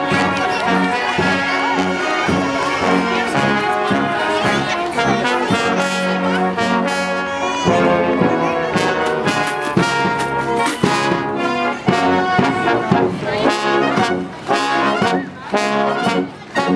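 Marching brass band playing a tune, with tuba and trombones among the instruments; the notes turn short and detached over the last few seconds.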